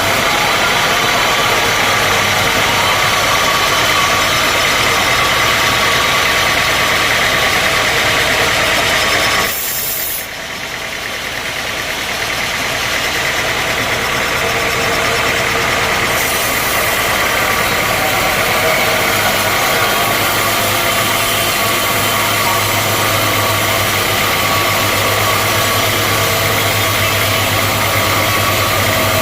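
Sawmill machinery running with a loud, steady drone. About nine and a half seconds in, the sound drops suddenly, then builds back up over several seconds.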